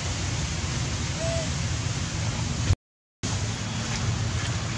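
Steady outdoor rushing noise with a low, flickering rumble, with one brief faint chirp about a second in. The sound cuts out completely for about half a second a little past the middle.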